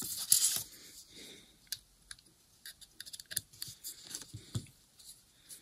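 Small, scattered clicks and scrapes of a hex driver tightening small screws into a plastic RC helicopter backplate RPM sensor plate. A short rustle of a hand brushing close to the microphone comes first.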